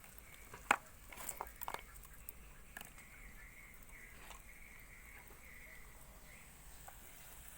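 Low steady background hum with a few light clicks and taps, the sharpest about two-thirds of a second in and a small cluster soon after.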